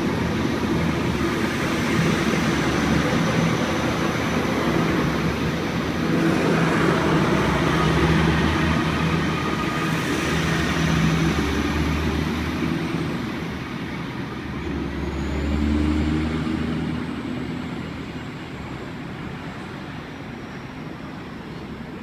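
NSW TrainLink Xplorer diesel railcar pulling out of the station. A steady diesel engine note runs over wheel and rail rumble, and it fades over the last several seconds as the train draws away.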